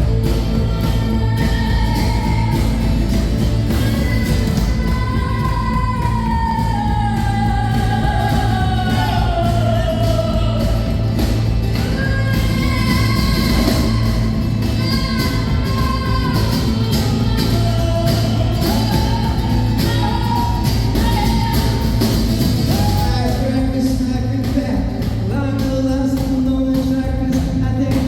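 Live rock music, with a melodic line gliding up and down over a steady bass.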